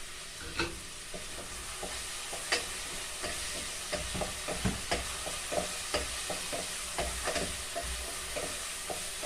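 Onion and garlic sizzling in hot oil in a pot while a utensil stirs them, tapping and scraping against the pot in irregular clicks, about two or three a second.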